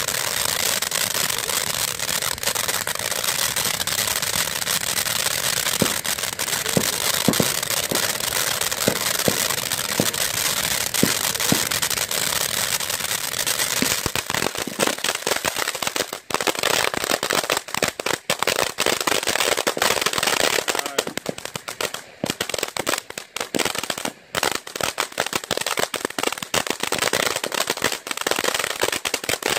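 Winda Snow Cone ground fountain firework spraying sparks with a steady hiss. About halfway through it turns into dense crackling, a rapid run of sharp little pops.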